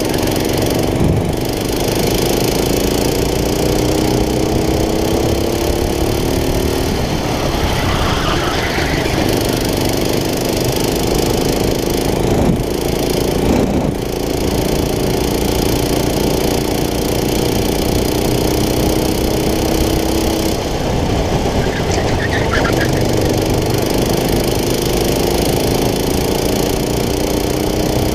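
Go-kart engine running hard at racing speed. Its pitch climbs slowly along each straight and drops back as the throttle is lifted for the corners, several times.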